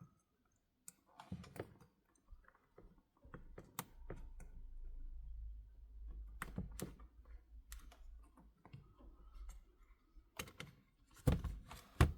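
Light clicks and taps of small smartphone parts and tools being handled on a workbench. A dull low rumble runs through the middle, and a few sharper knocks come near the end.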